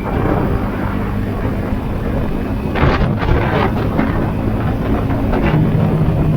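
Yamaha Sniper 150's single-cylinder four-stroke engine running under way, heard with the rush of wind on the microphone. There is a burst of noise about three seconds in, and the engine note shifts near the end.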